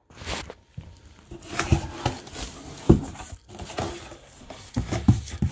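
Cardboard shipping box being opened by hand: flaps bent back and cardboard scraping and rustling, with a few sharp knocks and taps, the loudest about three seconds in.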